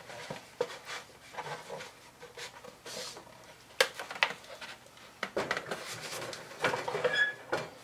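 Knocks and clatter of a wooden artist panel being handled and set down on a metal wire rack, with a plastic cup being moved; the loudest knocks come a little under 4 s in and a short squeak sounds near the end.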